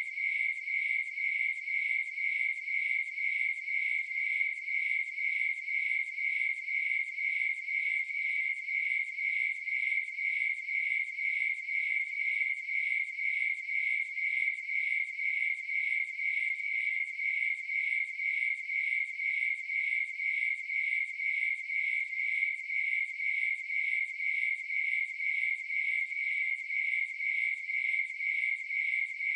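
Crickets chirping steadily in an even, rapid rhythm, with a high, narrow-pitched chirp.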